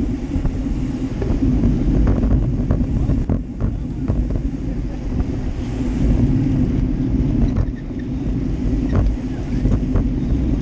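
Wind noise on the microphone of a GoPro Hero Session action camera riding on a road bike in a bunch of racing cyclists, over the sound of the bikes rolling on asphalt, with a few sharp clicks.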